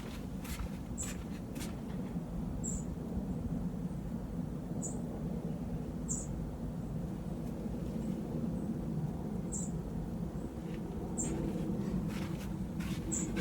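A small bird chirping, short high single chirps every second or two at irregular intervals, over a steady low background rumble.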